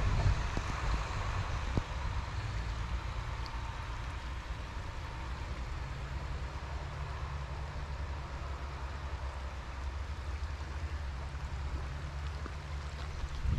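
Wind rumbling on the action camera's microphone over the steady rush of a shallow, stony stream.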